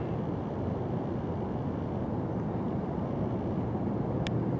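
Steady jet noise from a KC-135 Stratotanker's four turbofan engines as it flies overhead in a bank, heard from the ground. There is a short sharp click about four seconds in.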